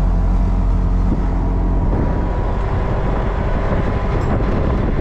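Auto-rickshaw (tuk-tuk) engine running steadily as it drives along, heard from inside the cab.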